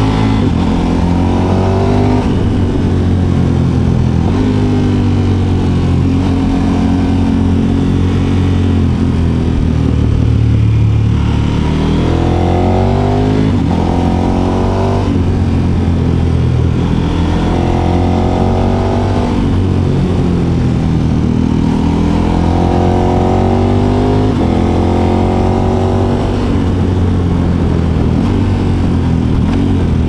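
KTM 1290 Super Adventure S's V-twin engine through an Akrapovic silencer, running under way. Its pitch climbs under acceleration and drops back sharply several times, as it is pulled up through the revs and then shifted or rolled off.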